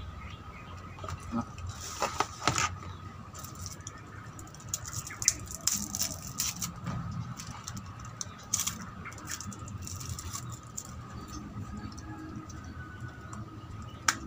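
Plastic packaging crinkling and crackling in the hands as a wrapper is handled and a drinking straw's wrapper is torn open, with a single sharp click near the end as the straw is pushed into a drink carton.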